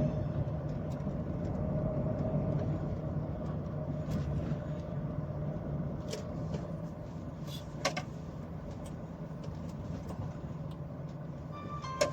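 An engine running steadily with a low hum, and two sharp clicks, one about eight seconds in and one near the end.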